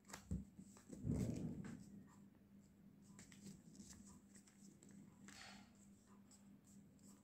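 Faint rustling and creasing of a sheet of A4 paper being folded by hand on a tabletop, with a soft tap just after the start and a brief louder rustle about a second in, over a faint steady hum.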